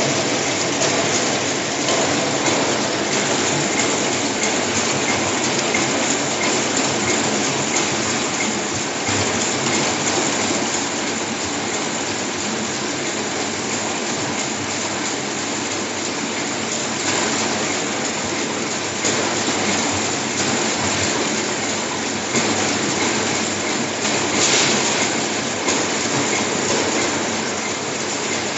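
Automatic cake-disk turntable and flow-wrap packing line running at about 180 packs a minute: a steady, dense mechanical clatter of many small rapid clicks.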